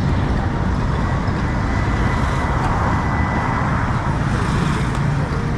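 Steady road traffic noise: a continuous rumble of passing cars and trucks on busy city streets.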